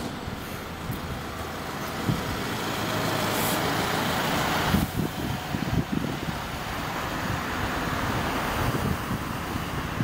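Alexander Dennis Enviro400H MMC hybrid double-decker bus running and moving along the stand, with a steady low rumble. A louder rushing noise builds and cuts off sharply about five seconds in.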